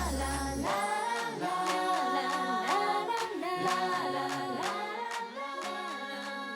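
Closing bars of a pop song: after a held chord cuts off, a melodic line with a sung or vocal-like lead plays on and slowly fades.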